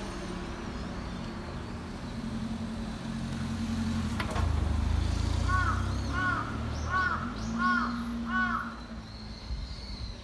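A crow cawing five times in a quick series, about one call every second and a half, over a low rumble of passing road traffic.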